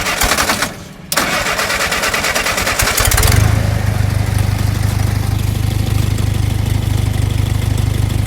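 Willys CJ-2A's four-cylinder flathead engine cold-started after a new points, condenser and coil tune-up: the starter cranks briefly and stops, cranks again for about two seconds, and the engine catches about three seconds in and settles into a steady idle.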